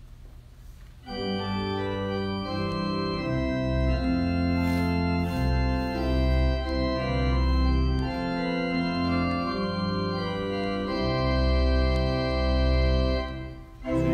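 Organ playing slow, sustained chords over held bass notes, starting about a second in, with a brief break just before the end.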